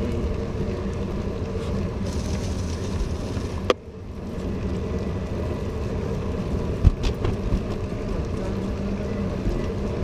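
Road bike on skinny 23 mm Continental Gatorskin tyres rolling over wet asphalt, a steady rumble of road noise. Two sharp knocks break it, one just under four seconds in and one near seven seconds.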